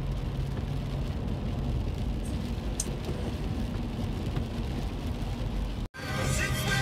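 Steady road and rain noise inside a car driving on a wet highway: tyres on wet pavement and rain on the windshield under a low rumble. It cuts out sharply just before the end, and music starts.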